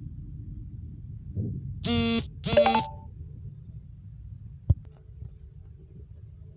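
A horn sounds two short blasts about two seconds in, over the low, steady rumble heard inside a car. A single sharp click follows a couple of seconds later.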